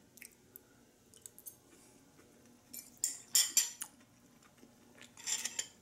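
Cutlery clinking and scraping on a plate: a cluster of short scratchy clinks about three seconds in, another near the end, and a few soft ticks between.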